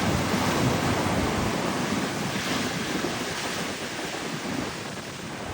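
Ocean surf washing on a beach, with wind buffeting the microphone; the wash is loudest at first and eases off gradually.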